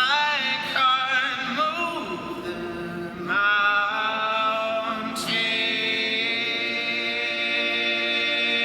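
Voices singing wordless, long-held notes in harmony with strong vibrato. New notes come in about three and five seconds in, and the last is held out.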